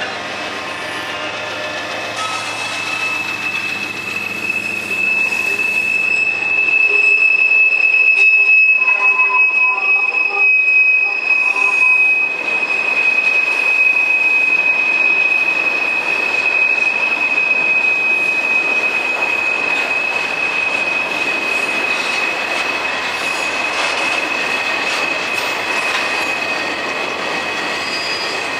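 Freight train cars rolling past with a sustained high-pitched wheel squeal over the rumble and clatter of the wheels. The trailing diesel locomotives' engines hum low for the first several seconds, then fade.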